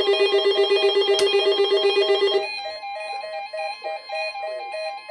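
Weather radio receiver alarms set off by a NOAA Weather Radio test signal: a loud low electronic tone pulsing very fast cuts off about two and a half seconds in, leaving a softer, higher two-note beeping alarm that keeps repeating.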